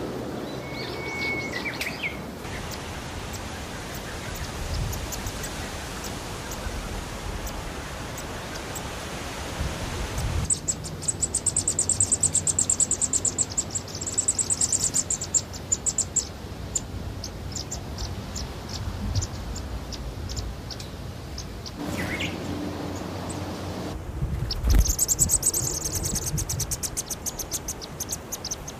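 Black paradise flycatcher nestlings begging at the nest as a parent feeds them. They give two bursts of rapid, high-pitched chirping, each several seconds long. Before the chirping, a steady forest ambience with a single brief bird call.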